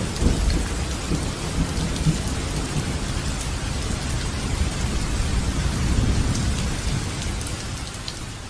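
Rain falling steadily with a low rumble underneath, fading over the last couple of seconds.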